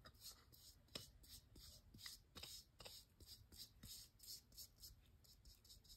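Faint swishing of a foam brush stroked over a plastic ornament, spreading a thin layer of foil adhesive, about three strokes a second.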